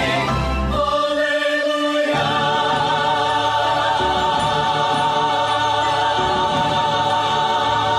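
Sacred choral music: a choir with accompaniment moves through a few notes, then holds one long chord with vibrato from about two seconds in, the closing chord of the song.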